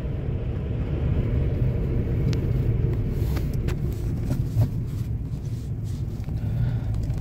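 Steady low rumble of a car's road and engine noise, heard from inside the cabin while driving, with a few faint ticks about halfway through.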